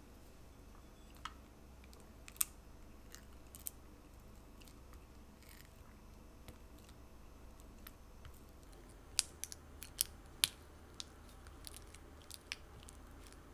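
Silicone spatula pressing and scraping a block of cream cheese against a glass mixing bowl to soften it: scattered light clicks and taps on the glass, coming thickest about two-thirds of the way through.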